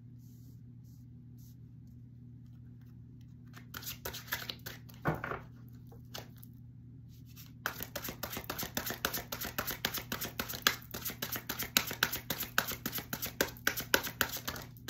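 Tarot cards being shuffled by hand: a few soft card clicks near the middle, then from about halfway on a fast, continuous run of flicking card clicks. A low steady hum runs underneath.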